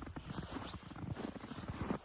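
Footsteps of a person walking, heard as a dense, irregular run of small scuffs and crunches.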